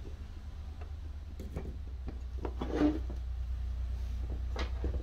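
Light knocks and rubbing of wood and metal as wooden handle scales are pressed onto a knife's pinned tang and a steel C-clamp is fitted over them, the loudest knock just under three seconds in and another click near the end. A steady low hum runs underneath.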